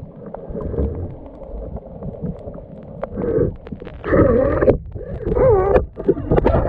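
Underwater recording: muffled low rumbling water noise, then from about three seconds in four short bursts of a wavering, pitched groaning sound.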